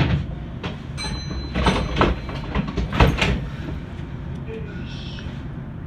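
Meitetsu Inuyama Line train running, with a steady low rumble and sharp wheel knocks over rail joints in two quick pairs, clack-clack then clack-clack. A brief thin high whine sounds about a second in.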